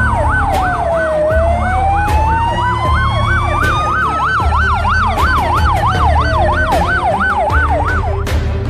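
Two emergency sirens sounding together: a fast yelp rising and falling about three times a second, and a slow wail that falls, rises and falls again over several seconds. Both stop shortly before the end, over music with a steady low beat.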